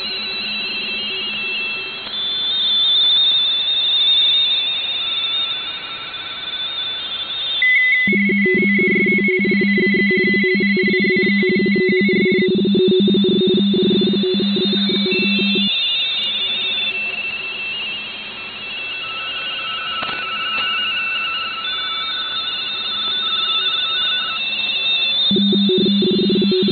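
Several RTTY signals from an HF receiver at once, each a warbling two-tone data signal flicking rapidly between its mark and space pitches (45.45 baud, 170 Hz shift), stacked at different pitches across the receiver's audio. The loudest is a low-pitched signal that starts about a third of the way in, stops about two-thirds of the way in, and returns near the end.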